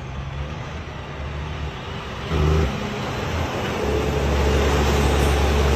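Motor vehicle engine running with a steady low hum and hiss, swelling briefly a little past two seconds in and growing louder about four seconds in.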